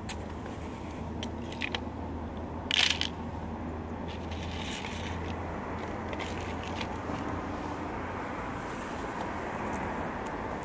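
A stray cat eating hungrily, with scattered crunching and clicking from its chewing and a louder crackle about three seconds in, over a steady low hum.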